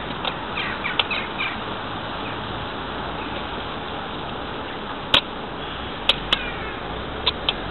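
Steady road and traffic noise while riding slowly up to a queue of cars. A few short high chirps come in the first second and a half, and five sharp clicks come in the last three seconds.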